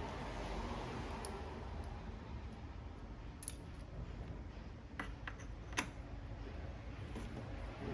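A few light, sharp clicks and taps of small repair tools and phone parts being handled during an iPhone X teardown, the loudest near the end, over a steady low background hum.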